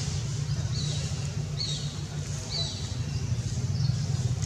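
Outdoor ambience: a steady low hum under short, high, falling chirps that repeat about once a second.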